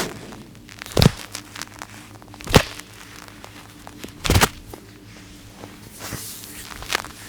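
Massage hands cracking and slapping on skin: three loud, sharp snaps spaced about one and a half to two seconds apart, and a fainter one near the end.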